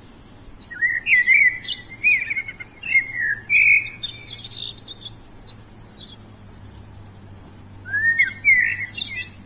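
Songbird singing quick runs of chirping, warbling notes in two phrases: one beginning about a second in and lasting some three seconds, the other starting near the end.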